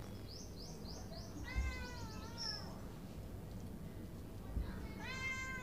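A cat meowing twice: a wavering meow about a second and a half in and another near the end, with a run of short high chirps before the first. Two soft low bumps fall around the start of each meow.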